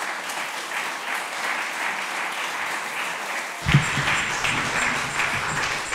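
Audience applauding steadily in a hall. About four seconds in, a thump and then a low rumble join in beneath the clapping.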